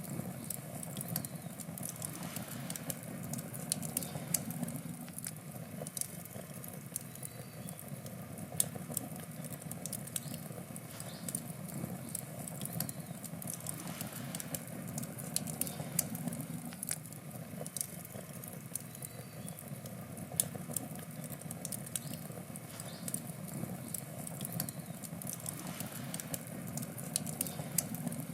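Wood campfire burning: a steady low rush of flame with many sharp, irregular crackles and pops from the burning wood.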